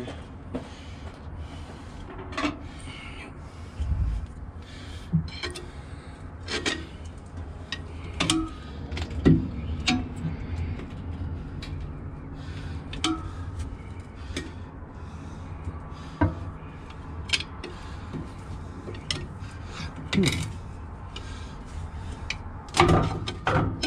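Hand tools, a pry bar and screwdriver, working on the steel wear parts of a concrete pump's S-tube assembly: scattered metal clinks, knocks and scrapes over a steady low hum.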